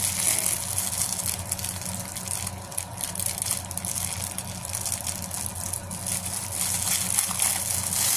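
Thin plastic packaging crinkling and crackling continuously as hands pull open a small clear bag.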